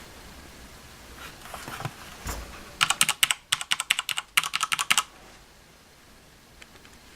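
Typing on a Sanwa Supply SKB-MK2BK mechanical keyboard: a quick run of key clicks lasting about two seconds, with a brief pause partway through.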